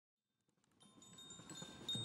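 Chimes ringing, with many overlapping high tones and light strikes, fading in from silence and growing louder over a low rumble.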